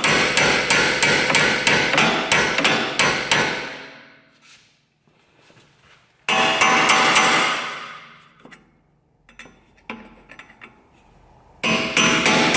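Hammer blows on a steel punch driving a stuck upper control arm joint out of the Audi A4 B7's front steering knuckle, a steady metallic run of about three strikes a second. It stops about three and a half seconds in; a sudden louder noise that fades over about a second and a half and a few light clicks follow, and the hammering starts again near the end.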